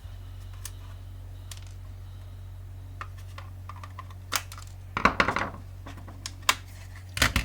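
Tools and small metal parts clicking and knocking on a workbench during disassembly, with a busier clatter about five seconds in and another near the end. A steady low hum runs underneath.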